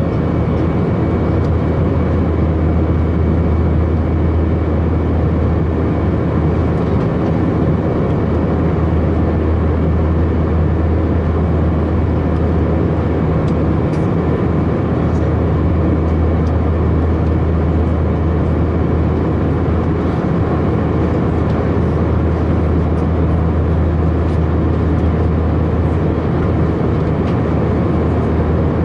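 Steady in-flight cabin noise of an Airbus A319 heard at a window seat beside the wing. The IAE V2522-A5 turbofan gives a strong low hum with a few steady whining tones above it, over an even rush of air.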